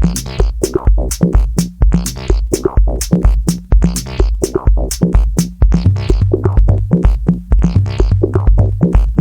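Electronic music played live on an MFB Tanzbar Lite analogue drum machine and a DSI Mopho synthesizer: a steady, fast beat of kick drums and crisp hats over a low synth line. A further low sustained note joins about six seconds in.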